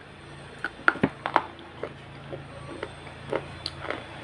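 Close-miked biting and crunching of a hard, crisp food: a string of sharp cracks and crunches at an uneven pace, loudest about a second in.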